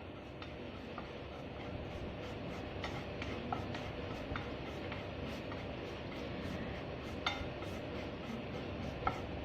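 A spoon stirring gram flour roasting in ghee in a pan, with scattered sharp clicks of the spoon against the pan over a steady hiss.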